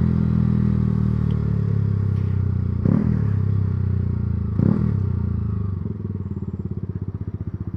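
Yamaha R125's single-cylinder 125 cc four-stroke engine running steadily, with two short blips that rise and fall in pitch about three and four and a half seconds in, then dropping to a slow, pulsing idle near the end.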